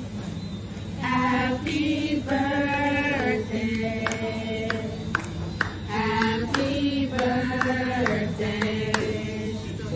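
Several men's and women's voices singing a birthday song together, with long held notes that step up and down, and scattered sharp hand claps in the middle.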